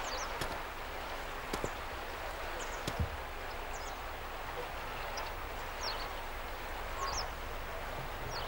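Small birds chirping now and then, about six short, high chirps over a steady outdoor background hiss. A few soft knocks are heard, the loudest about three seconds in.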